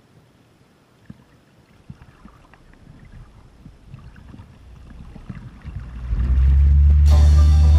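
Low rumble and rush of lake water against an inflatable tow tube, growing louder over several seconds as the tube is pulled up to speed behind a boat, swelling into a loud steady low drone. Music starts near the end.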